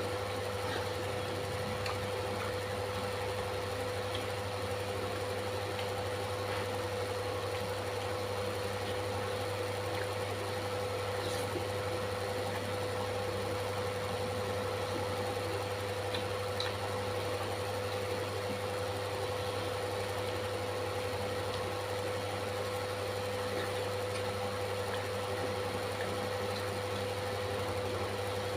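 A steady machine-like hum with a fixed mid-pitched tone and a low drone, with a few faint ticks here and there.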